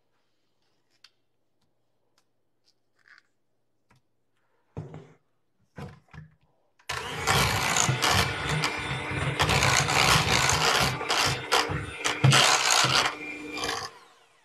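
Electric hand mixer running, its beaters whipping boiled potatoes with milk, butter and sour cream into cream potatoes in a metal saucepan, with a steady motor hum and irregular clatter of the beaters against the pan. It starts about seven seconds in and stops shortly before the end.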